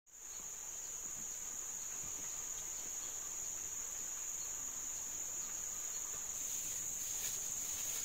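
Insects calling in a steady, high-pitched drone that grows a little louder near the end.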